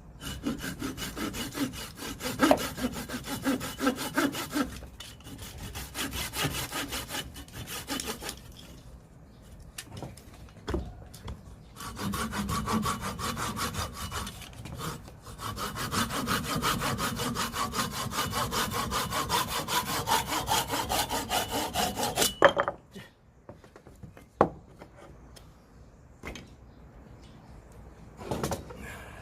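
Hand saw cutting firewood in quick back-and-forth strokes, in two long spells with a pause between. The sawing ends in a sharp knock, followed by a few scattered wooden knocks.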